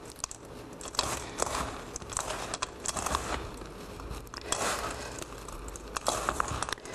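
Hands mixing a crumbly oatmeal topping with pistachios in a metal bowl: irregular crunchy rustling and crackling, with scattered small clicks.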